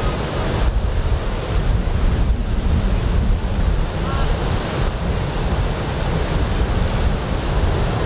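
Ocean surf breaking and washing onto the beach, a steady roar of water with wind buffeting the microphone.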